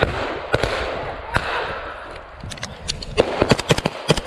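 Rifle fire from several soldiers: a few scattered single shots, then a quick run of many shots about three seconds in.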